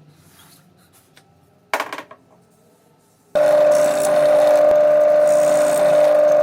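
A brief scraping burst, then a power tool that starts abruptly and runs at a steady whine for about three seconds before cutting off suddenly.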